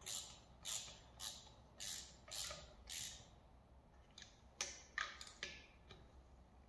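Ratchet with a 14 mm socket nipping up the connecting-rod nuts on a VW air-cooled crankshaft: a short burst of ratchet clicks on each back-swing, about ten strokes roughly every half second, with a brief pause in the middle.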